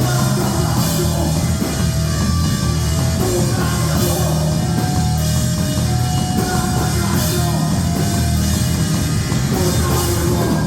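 Loud heavy rock music with a drum kit beating steadily under held, dense guitar-like notes.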